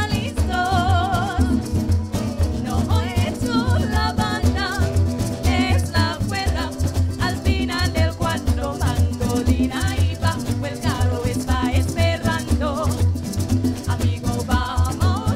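Live parang band playing: singing in Spanish over strummed cuatro, mandolin and bass, with a steady pulsing bass beat.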